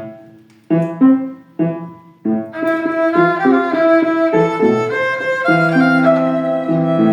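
Argentine tango played on violin with accompaniment: four short accented chords about a second apart, each dying away, then from about two and a half seconds in a continuous bowed violin melody over held lower notes.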